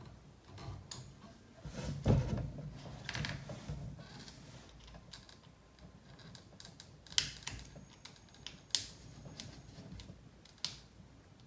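Scattered clicks and light knocks of hard plastic parts as hands work a fuel tank and its retaining clip into a nitro RC truck's chassis, with a duller knock about two seconds in and a few sharper clicks later on.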